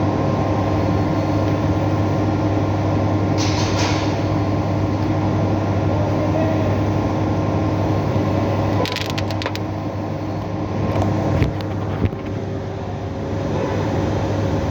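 Steady machinery hum in a workshop, with a few metallic clicks and clinks of engine parts and tools being handled, about four seconds in and again around nine and twelve seconds in.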